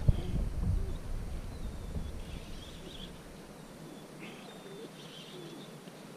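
Wild birds calling with several short chirps, mostly in the middle and later part. A low rumble runs through the first second or two.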